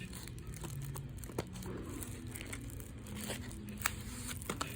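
Crinkling of plastic shrink wrap with scattered light clicks and taps as a shrink-wrapped Blu-ray case is turned over in the hands.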